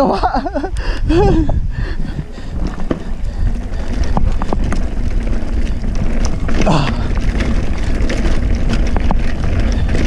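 Mountain bike riding down a rocky dirt trail: wind buffeting the camera microphone over the steady rumble and rattle of the bike, with scattered sharp clicks and knocks.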